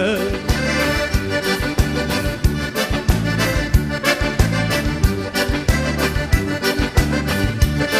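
Gaúcho dance music: an instrumental accordion passage over a steady, fast beat.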